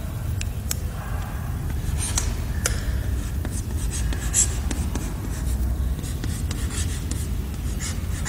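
Chalk writing on a blackboard: a scattered run of short taps and scratches as letters are written, over a steady low hum.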